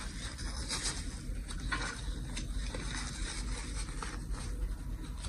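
Faint rustling and scraping of a paper napkin wiping leftover solder paste off a metal stencil, over a low steady hum.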